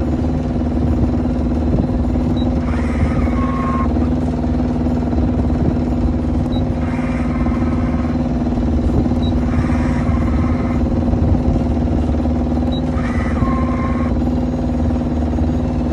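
Raymarine ST4000/ST6000 wheel-pilot drive motor whirring in four short bursts of about a second, roughly every three seconds, as the autopilot in Auto turns the wheel to hold its heading. A steady engine drone runs underneath. The bursts are the newly replaced drive motor working again after the 'current limit' and 'motor stall' faults.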